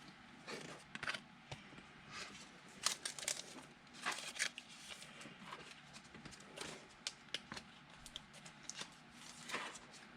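Trading cards and their plastic or foil packaging being handled: faint, scattered rustles, crinkles and light clicks.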